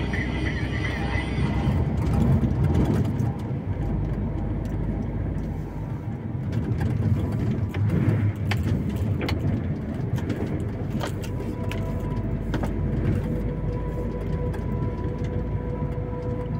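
Vehicle driving at low speed, heard from inside the cab: a steady low engine and road rumble with scattered clicks and rattles.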